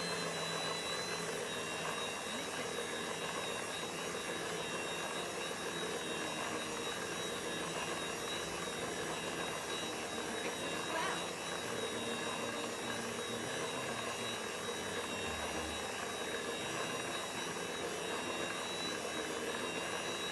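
Kenwood mixer's electric motor running steadily while beating red velvet cake batter of eggs, premix and melted butter, with a thin high whine over the motor noise.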